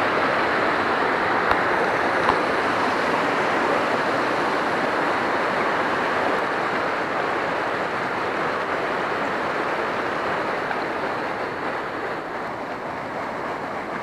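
Steady rush of water from a shallow, rocky stream, gradually growing fainter in the second half.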